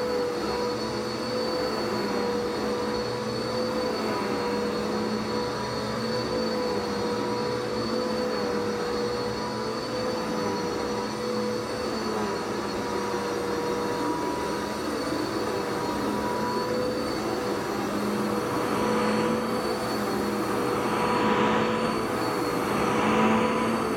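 Vacuum cleaner running steadily, its motor giving a high, constant whine over the rush of suction; the rushing noise swells a few times near the end.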